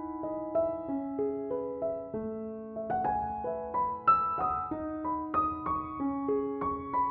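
Background piano music: a steady run of single notes and chords, each struck and left to ring.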